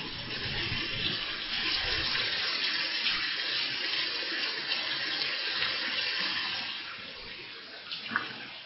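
Rain pouring down steadily, easing off slightly near the end.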